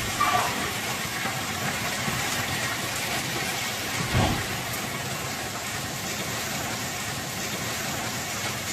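Strong wind blowing hard and buffeting the microphone in a steady rushing roar, with a louder low thump about four seconds in.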